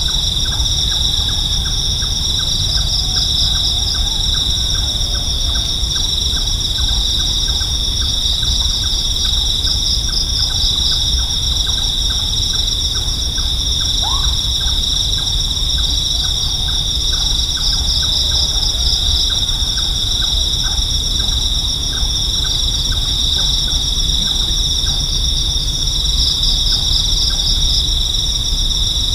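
Night insect chorus: a steady, high, shrill trill with a regular pulsing in it, and a rapid even ticking underneath, over a low rumble.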